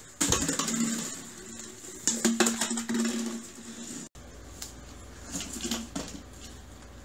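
Snapple bottles knocked and clattered about by a small child: a sharp clink at the start and a cluster of knocks a couple of seconds in. This is followed by a quieter stretch with a low steady hum.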